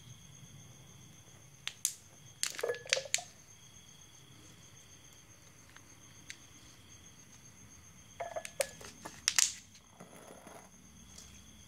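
Thin plastic cups handled and set down on a hard tabletop: a quick cluster of clicks and knocks about two seconds in, and another around eight to nine seconds in.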